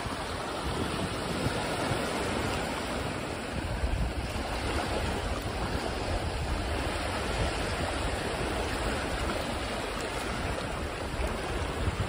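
Small waves washing and lapping over a shallow sandy shore in a steady hiss of moving water, with wind rumbling on the microphone.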